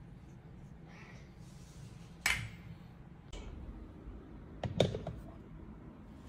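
Ceramic cat-food bowl and plastic spoon handled: one sharp click about two seconds in, then a short clatter of knocks about five seconds in as the bowl is set down in a wooden feeder stand.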